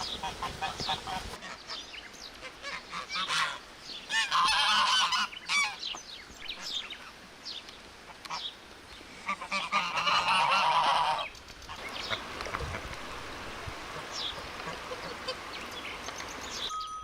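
Farmyard birds calling: short calls throughout, with two long, loud, wavering calls about four and ten seconds in.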